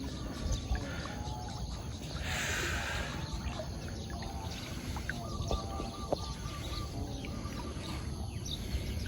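Floodwater sloshing and swishing as a person wades through it, with a short rush of splashing water about two seconds in. Short repeated chirping calls from wildlife are heard over it, including a quick run of chirps a little past halfway.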